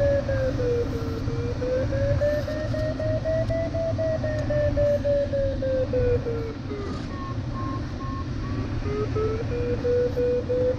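Glider audio variometer sounding one continuous tone whose pitch drifts slowly up and down as the climb rate changes, fading briefly and coming back near the end. Under it is the steady rush of airflow in the LS7-WL's cockpit.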